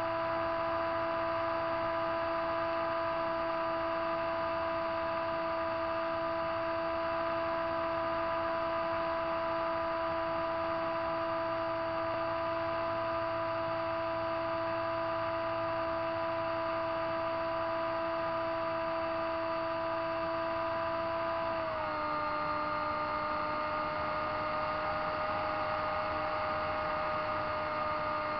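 An RC seaplane's motor and propeller heard from the aircraft itself, a steady whine at constant throttle. About three-quarters of the way through, the pitch drops a little as the power is eased.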